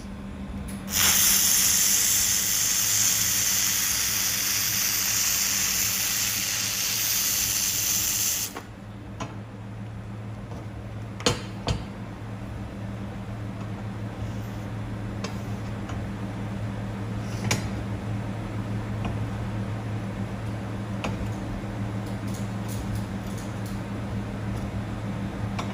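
Handheld fiber laser welder running a weld pass on mild steel: a loud, steady hiss from the nozzle starts about a second in and cuts off abruptly about seven seconds later. A low, steady hum runs underneath, and a few sharp clicks follow.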